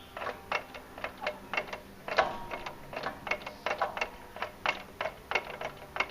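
Irregular metallic clicks, roughly three a second, from a 2006 VW Polo 1.6's driveline as the wheel is worked back and forth by hand. The clicking is free play in the drive, which the owner suspects comes from a worn driveshaft joint (cross or tripod joint).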